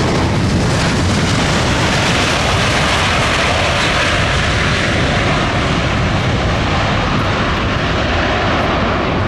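Airbus A400M Atlas military transport flying past, its four TP400 turboprop engines running with a loud, steady noise that swells a little midway.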